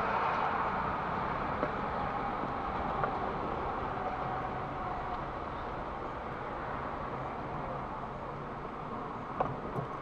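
Car driving slowly, heard from inside the cabin: steady engine and road noise, with a few faint ticks.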